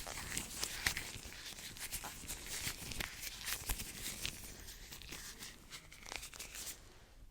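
Hands rubbing and moving fast close to a sensitive microphone: a quick, irregular run of rustles and small clicks that dies away near the end.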